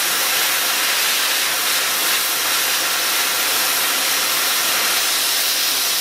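Oxy-fuel torch flame hissing steadily as it heats a steel rod clamped in a vise, making the metal expand and move.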